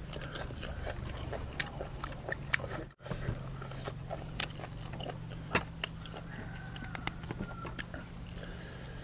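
Close-miked chewing of boiled beef shank, with many sharp wet mouth clicks and smacks, while leafy greens are handled by hand.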